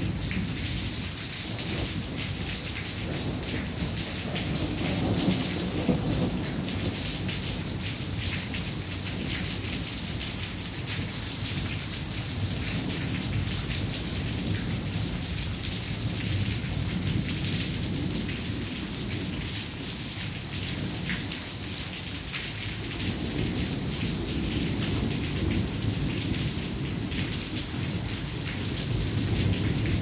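Steady rain hissing, with low thunder rumbling under it. The thunder swells about five seconds in and again over the last third.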